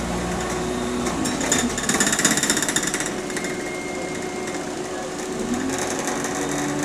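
Bus engine and drivetrain heard from inside the cabin, the pitch falling about a second in as it slows, with a rapid rattling clatter for a second or two and then a thin high squeal lasting under two seconds.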